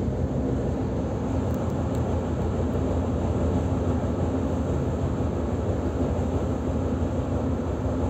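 Running noise heard inside the passenger car of an EG2Tv "Ivolga" electric train in motion: a steady low rumble of wheels on rail with a steady hum over it.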